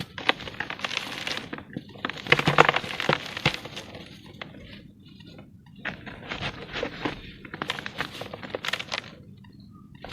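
Lumps of pure cement being crumbled, a gritty crackling crunch of many small cracks coming in four or five bouts with short pauses between.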